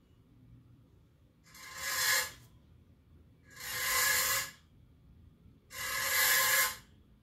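Recorded percussion instrument sounding in three long, noisy strokes about two seconds apart, each swelling and fading over about a second.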